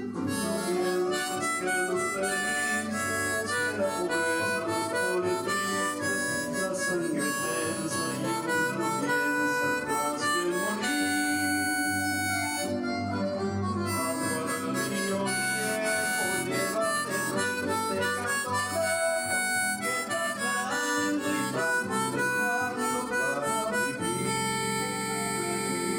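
Harmonica in C playing a melody in the key of G, second position (cross harp), over an accompaniment of lower held notes.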